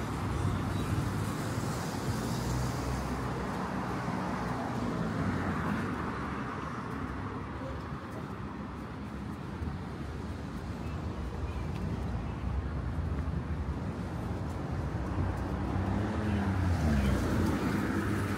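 Street traffic: cars and other vehicles passing with a steady rumble of engines and tyres, one passing louder near the end.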